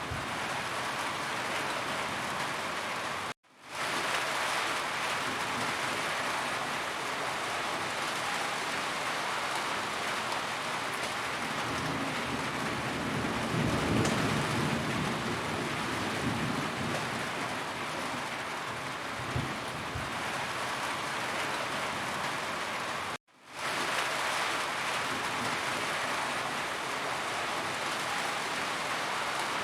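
Steady heavy rain drumming on a roof, with a low rumble of thunder swelling and fading about halfway through. The sound cuts out to silence for a moment twice, about three seconds in and about three-quarters of the way through.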